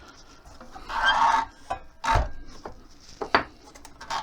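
Workshop handling sounds as a short workpiece is set up at the saw for cutting: a brief rubbing scrape of wood about a second in, a sharp knock just after two seconds, then a couple of light clicks.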